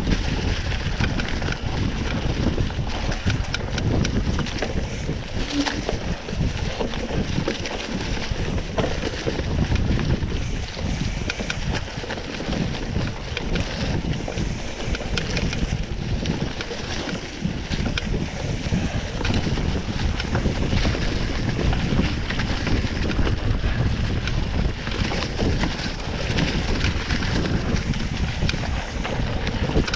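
Wind buffeting the microphone on a moving mountain bike, with a steady rumble and constant jolts and rattles from riding over rough trail.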